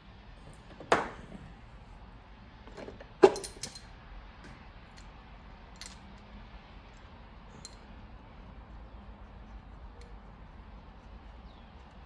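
Metal tools and engine hardware clinking: two sharp clinks, about a second in and just after three seconds, followed by a few faint ticks.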